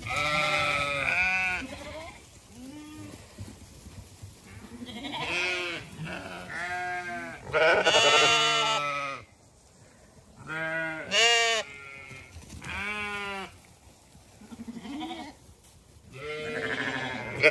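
Zwartbles sheep bleating, one call after another, each call lasting about a second with short gaps between.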